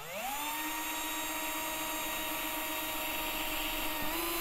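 Cordless drill with a 1 mm bit drilling a pilot hole: its motor whine rises in pitch as it spins up at the start, then holds a steady pitch, stepping slightly higher near the end.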